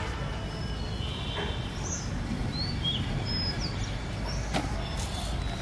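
Outdoor background: a steady low rumble with short bird chirps and whistles scattered over it, and a couple of faint clicks near the end.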